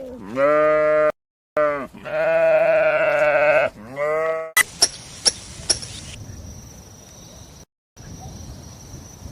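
Sheep bleating: three or four wavering calls in the first half, one of them long. Then a few sharp clicks over quieter background noise with a faint high whine.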